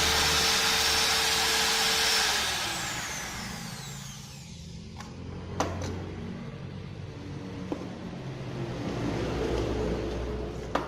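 Ryu RTR 6 wood trimmer (palm router) running unloaded with no bit fitted, a steady high whine. About two seconds in it is switched off and the whine falls away as the motor winds down. A few light clicks and knocks follow as the tool is handled.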